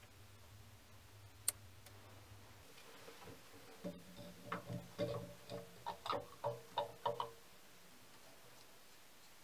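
Metal parts being handled during fitting: a single sharp click about a second and a half in, then a run of about a dozen short metallic clunks and knocks with a slight ring as a brushless servo motor is set against a mini lathe's headstock.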